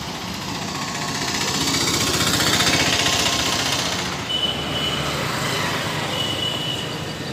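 Road traffic passing on a bridge, with a motorcycle engine close by, its rapid rattling engine noise swelling and then fading about two to four seconds in.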